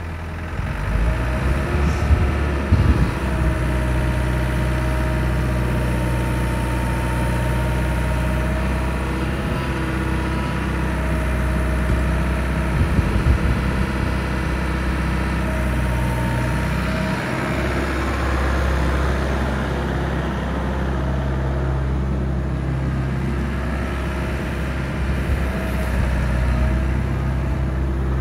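Doosan DH60-7 midi excavator's diesel engine running steadily while the boom and arm are worked, with a higher whine that comes and goes over the engine note. The engine steps up in loudness about a second in, and there are a few short knocks near the start and again midway.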